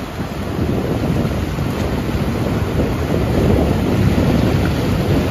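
Ocean surf washing in with wind buffeting the microphone: a steady, low rushing noise that swells slightly toward the end.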